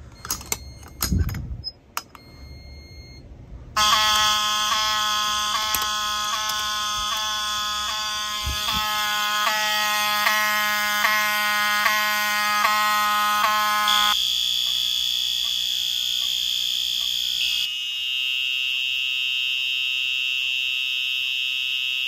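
Handling clicks at a fire alarm pull station. About four seconds in, a home fire alarm system goes into alarm: several fire alarm horns sound together, one pulsing about twice a second over a steady high tone. The mix of horns changes about 14 and 18 seconds in.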